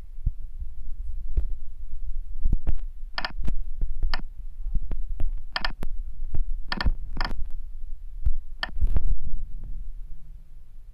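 Short clicks from a phone's on-screen keypad as G-code is typed into a CNC simulator app, about six of them between about three and nine seconds in. Under them runs a steady low rumble.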